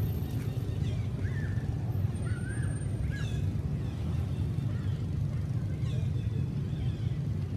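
Steady low rumble with a few faint, short, high-pitched calls falling in pitch, scattered through it: squeaks from monkeys.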